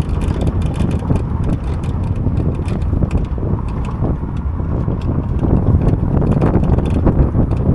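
A moving vehicle's road and engine rumble with wind buffeting the microphone, and light rattles and clicks scattered throughout.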